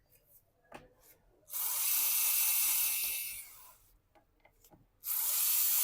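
Small electric screwdriver running in two bursts, one of about two seconds and one starting near the end, backing out the laptop's bottom-cover screws, with a few light clicks before the first burst.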